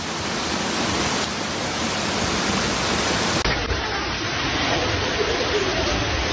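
Loud, steady rush of water, as from floodwater or a downpour, changing character abruptly about three and a half seconds in.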